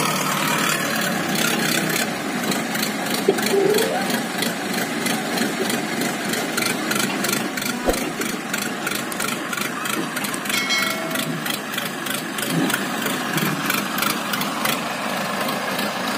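Diesel engines of a working backhoe loader and a Mahindra Arjun 605 DI tractor running steadily, with two short sharp knocks about three and eight seconds in.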